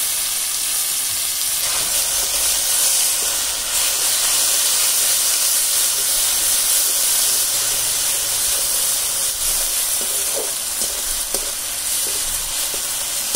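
Onion and garlic pastes sizzling steadily in hot oil in a karahi (wok), stirred with a metal spatula, with a few faint scrapes of the spatula on the pan near the end.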